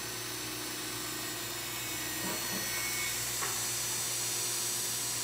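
Cordless drill running steadily, boring a pilot hole through a walnut block and into the hardwood push stick behind it. The sound builds a little about two seconds in.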